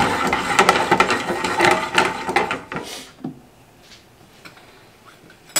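Butter and lemon-juice sauce bubbling and sizzling in a non-stick frying pan, a dense crackle that dies away about three seconds in, leaving a few faint ticks.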